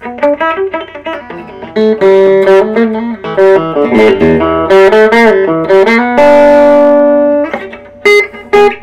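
Epiphone Wilshire P90 Reissue electric guitar played clean on its bridge P90 pickup through a tube amp with reverb. It plays a run of single picked notes, then a note held ringing a little past six seconds in, then a few short plucked notes near the end. A faint steady low hum runs underneath.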